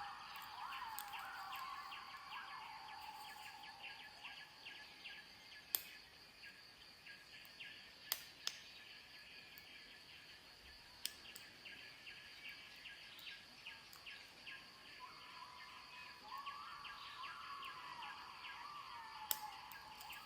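A few faint, sharp metallic clicks from a lock pick and tension wrench working the pins of an American 1100 padlock, spaced several seconds apart, over a steady outdoor background of high chirping.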